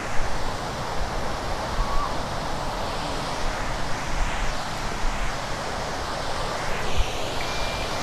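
Steady rushing of water over a waterfall cascade, an even hiss, with low wind buffeting on the microphone and two faint brief whistles.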